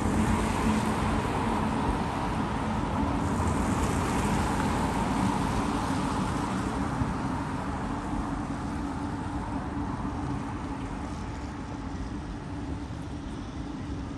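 Steady low engine drone of the large passenger ferry Viking Glory moving past close by, easing off slightly toward the end.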